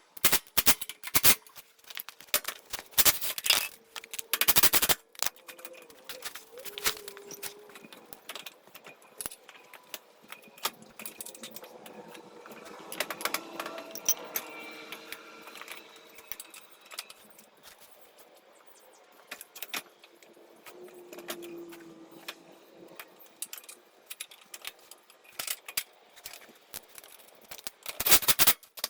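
Metal tools and hardware clinking and rattling in irregular sharp knocks while a caster bolt is worked loose with a wrench, with a faint drawn-out whine about halfway through.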